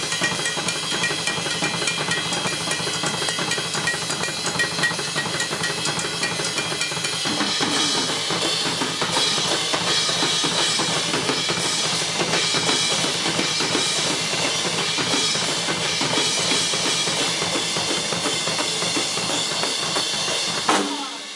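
Live rock drum kit solo: fast, dense playing on bass drum, snare and toms under a constant wash of cymbals. Near the end one loud hit, after which the playing drops away.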